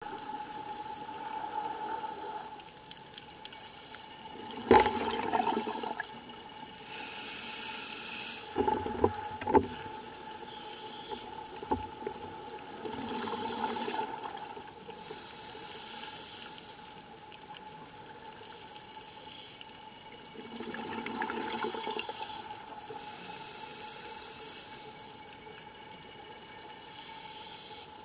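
Underwater ambience of a scuba dive, heard through a camera housing: the diver's breathing bubbles and hisses, swelling and fading about every eight seconds, over a faint steady tone. A few sharp knocks break in, the loudest about five seconds in and two more together near nine seconds.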